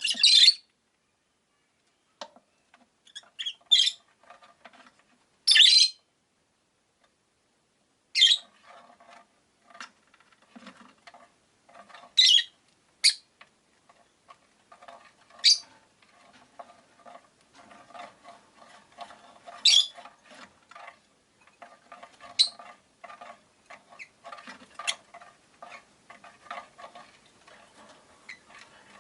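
Rosy-faced lovebirds giving short, sharp, high-pitched chirps every second or few seconds, with a steady run of soft clicking in between.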